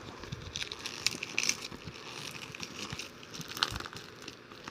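Plastic shrink wrap on a new DVD box set crinkling and crackling as it is handled and picked at to open it, with scattered small clicks.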